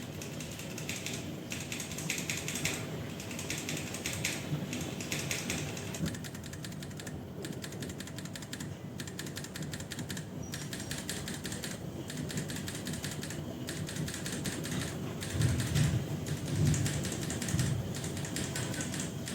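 Fast, continuous typing on a mechanical keyboard fitted with Tecsee Mango Ice tactile switches, the keystrokes clacking in a dense stream. A few heavier, deeper thumps come about three-quarters of the way in.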